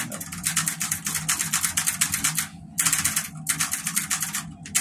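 Mechanical computer keyboard being mashed fast with both hands: a rapid rattle of key clicks, breaking off briefly twice.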